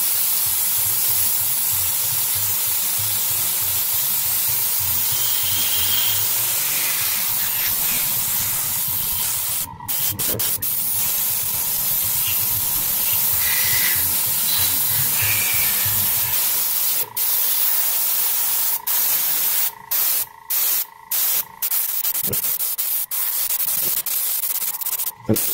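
Airbrush spraying paint: a steady, loud hiss of air with a thin steady tone in it, and a low pulsing hum underneath that stops about two-thirds of the way through. In the second half the hiss cuts off briefly several times as the trigger is let go.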